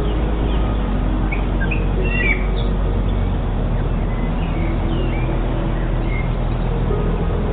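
Wild birds chirping, with short scattered chirps and quick rising and falling calls, over a steady low rumbling hum.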